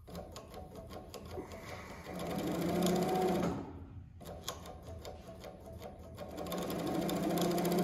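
JUKI MS-1190 industrial double-needle chain-stitch (feed-off-the-arm) sewing machine stitching in two runs, with a short stop about four seconds in; each run picks up speed and grows louder before easing off.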